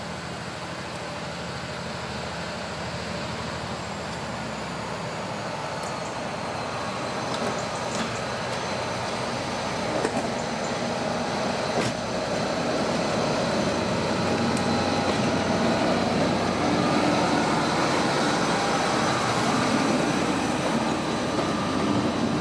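British Rail Class 57 diesel locomotive, with its EMD two-stroke engine, approaching and passing at the head of a passenger train, the engine and train noise growing steadily louder. A few sharp clicks come about ten and twelve seconds in.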